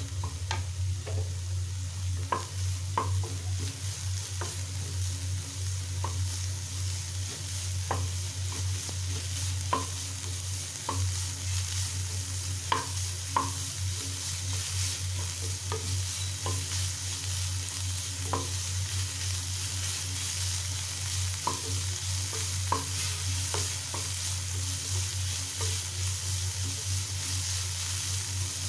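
Chopped mixed vegetables sizzling in hot oil in a non-stick kadai while a spatula stirs and tosses them, with irregular scraping clicks of the spatula against the pan. A steady low hum runs beneath.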